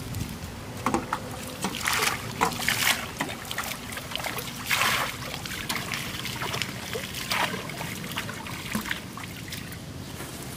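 Water splashing and pattering in several short bursts as handfuls of bait are tossed onto the canal surface.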